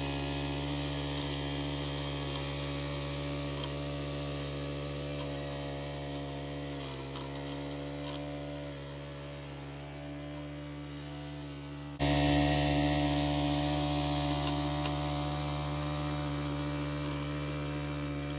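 Wild Badger 31cc four-stroke walk-behind edger engine running steadily as its blade recuts a grass edge, one even hum with a slight dip in pitch about seven seconds in. The sound jumps abruptly louder about twelve seconds in.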